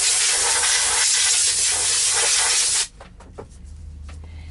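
Compressed air blowing debris out of a vacuum turbo brush head: one loud, steady hiss of about three seconds that cuts off sharply.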